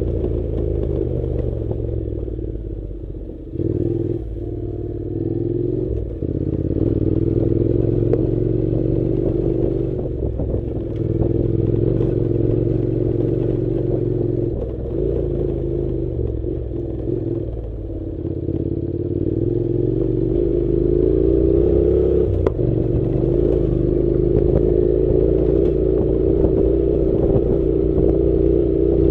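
Honda NC700's 670 cc parallel-twin engine running on an off-road ride, its pitch rising and falling with the throttle, easing off briefly about three and a half seconds in and climbing again about two-thirds of the way through. Small knocks are scattered through.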